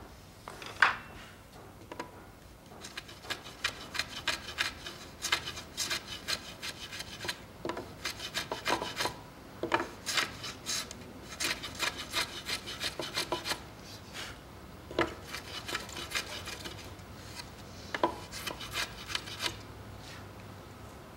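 Japanese shoulder plane (kiwa-ganna) shaving the shoulder of a wooden joint in runs of short, quick rasping strokes, with brief pauses between runs. A single sharp knock about a second in.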